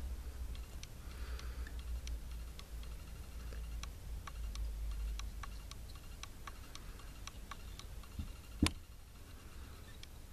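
Faint light ticking, about two or three ticks a second, over a low steady hum, with one sharper knock about eight and a half seconds in.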